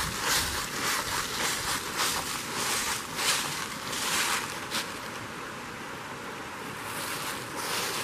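Footsteps crunching through dry fallen leaves over the steady rush of a brook flowing over rocks. The steps stop about five seconds in, leaving the water's rush on its own, and start again near the end.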